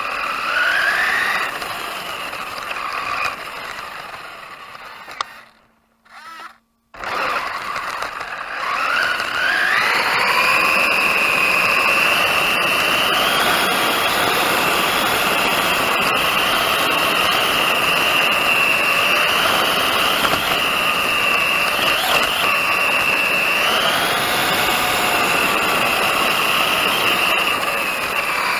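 Brushless electric motor and drivetrain of a 1/10 RC car whining, the pitch rising and falling with throttle. It fades to near silence about six seconds in, then winds up again and holds a high, fairly steady whine for the rest.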